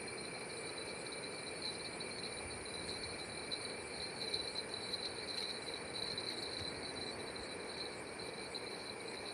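Steady chorus of crickets and other night insects: several high trilling tones held without a break over a soft hiss.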